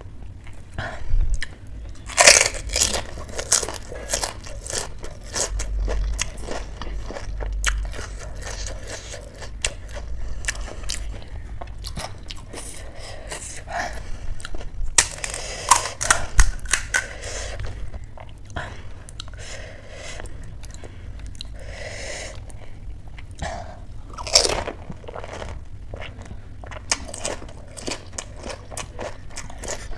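Panipuri being eaten: crisp, hollow puri shells filled with potato and spiced pani water crunching as they are bitten, then chewed wetly. The crunching comes in several louder bursts, strongest about 2 seconds in, around the middle, and about three quarters of the way through.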